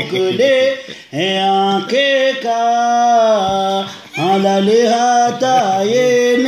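A man singing unaccompanied, a devotional chant in long held notes with gliding ornaments, breaking off briefly for breath about a second in and again about four seconds in.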